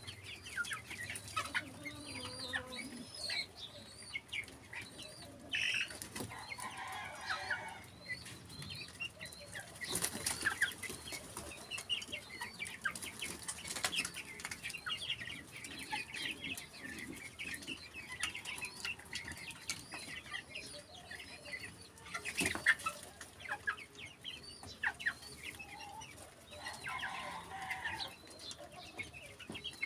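Birds calling: many short, high chirps throughout, with a few lower calls in between and a couple of sharp knocks, one about ten seconds in and one past the twenty-second mark.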